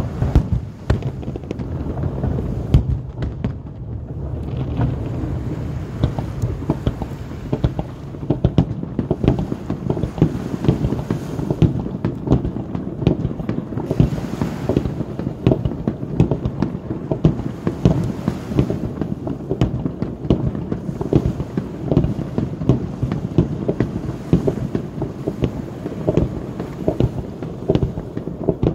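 Aerial fireworks bursting in a near-continuous barrage: many overlapping bangs and crackles, which thin out briefly a few seconds in and then come thick and fast again.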